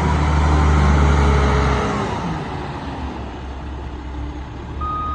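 Heavy vehicle's engine running with a steady low hum, loud at first and easing off about two seconds in. A single short beep sounds near the end.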